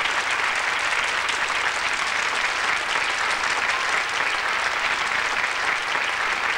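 A group of children clapping their hands: steady, dense applause.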